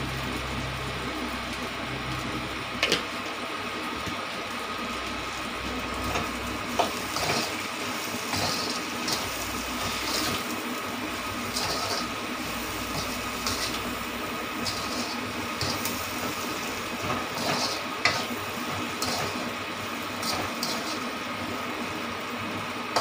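Metal spatula stirring and scraping masala-coated potatoes around a steel wok on a gas hob, with short scrapes every second or so and a few sharp knocks against the pan. A steady hiss runs underneath.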